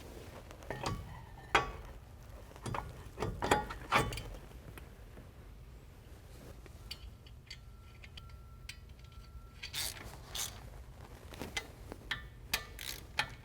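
Scattered metallic clicks and knocks of a Wilwood four-piston brake caliper and its hardware being fitted back over shims onto the mounting studs. The clicks bunch together in the first few seconds and again near the end, with a quieter stretch between.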